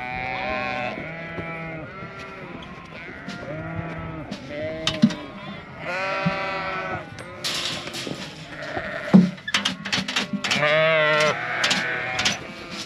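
A flock of sheep bleating, many overlapping calls from ewes and lambs just separated at weaning. A few sharp knocks sound near the middle and again later.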